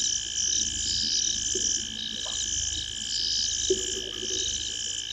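Night chorus of frogs and insects: steady high trilling with pulsed high calls repeating over it, and a couple of short low croaks.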